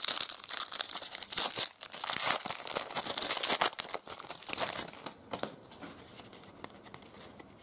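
Foil trading-card pack wrapper crinkling and tearing as it is pulled open. The dense crackling lasts about five seconds, then dies down to a few faint clicks as the cards are handled.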